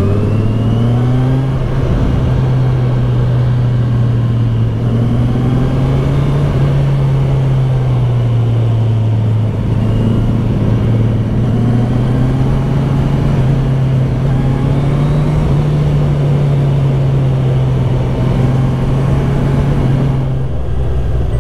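Kawasaki Z1000SX's inline-four engine running at steady cruising revs, its note rising and falling gently a few times as the throttle changes, over constant wind and road noise.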